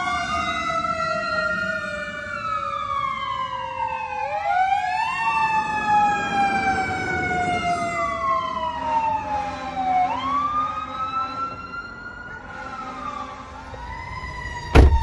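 Emergency-vehicle sirens wailing, at least two at once. Their pitch rises and falls over a few seconds, out of step with each other. A sharp, loud thump comes near the end.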